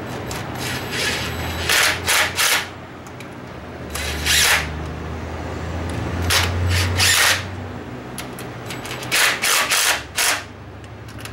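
Cordless drill driving a bolt through a socket extension, in four groups of short trigger pulls, over a steady low hum.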